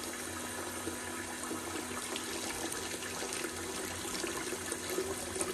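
Tap water running steadily into a stainless steel pot of rice noodles in cloudy, starchy water, as the noodles are rinsed in the sink.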